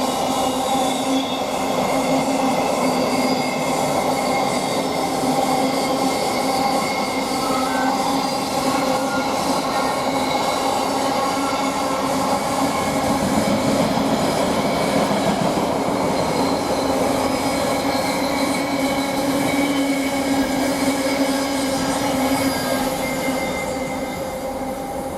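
Long container freight train rolling steadily past at speed, its wagon wheels sending up a steady squeal over the rumble of the running gear. The sound begins to fade near the end as the last wagons draw away.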